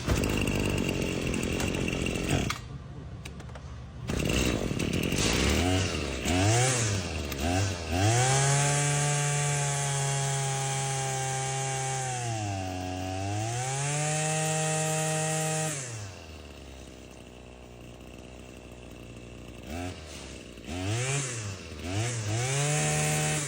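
Husqvarna 525L string trimmer's small two-stroke engine being test-run after its air-leaking intake was replaced. It is blipped up a few times, then held at high revs for about eight seconds with a brief sag partway through, and drops back to a low idle. Near the end come several more quick blips of the throttle.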